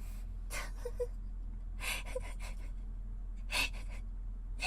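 A woman's short, sharp breaths close to a binaural dummy-head microphone: three quick in-breaths about a second and a half apart, with faint catches of voice, between bouts of sneezing.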